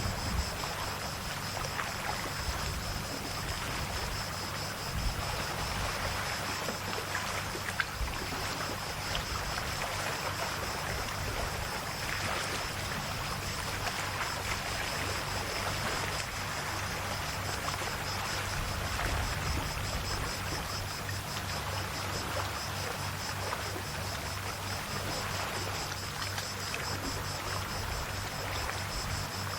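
Calm sea with small waves lapping and trickling at the shore, a steady wash of water without big breakers. Under it runs a steady low hum, and a steady high whine sits above the water sound.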